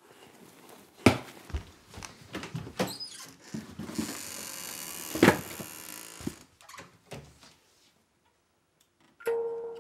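A run of scattered knocks and clicks, with a hissing noise lasting about two seconds in the middle. Music comes in near the end.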